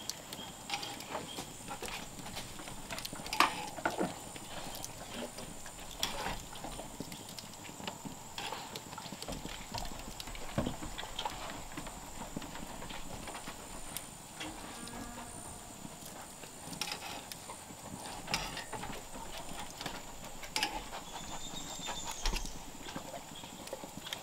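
Open fire crackling under a grill grate: scattered sharp pops and ticks, irregular and spread through the whole stretch.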